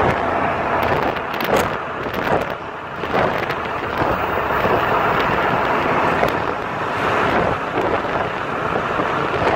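Wind buffeting the microphone of a moving vehicle, rushing in uneven gusts over the vehicle's road noise.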